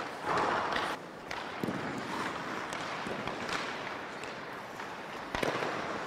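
Hockey skates scraping and carving on rink ice, with a couple of sharp knocks of stick and puck, the loudest near the end.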